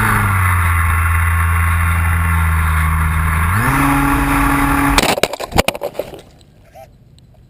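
RC model F4U Corsair plane's engine running steadily, rising in pitch a little past three and a half seconds in; at about five seconds a run of sharp cracking impacts as the plane crashes, and the engine stops.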